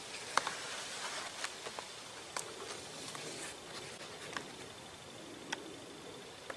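Birch bark crackling and rustling as a tube of bark is worked off a fallen birch trunk by hand, with scattered sharp clicks, the loudest about half a second in.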